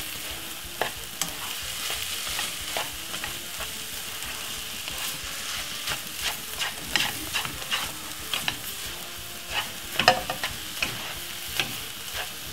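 Spatula stirring and scraping egg, sardine and chopped peppers around a non-stick frying pan over medium heat, with a steady frying sizzle underneath. The spatula's clicks and scrapes come in clusters, busiest about halfway through and again about ten seconds in.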